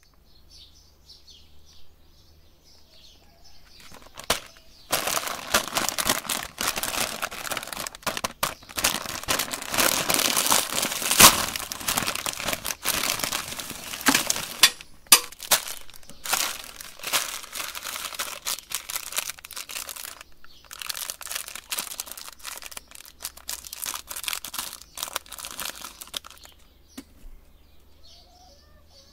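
Plastic lollipop wrappers crinkling as hands rustle through them, in irregular crackling bursts starting about four seconds in and easing off near the end. Faint bird chirps before the crinkling begins.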